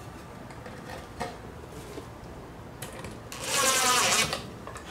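Cordless driver spinning up for about a second near the end, its pitch rising as it drives a screw into a wooden birdhouse panel. Before that there are a few light knocks of the wood pieces being handled and positioned.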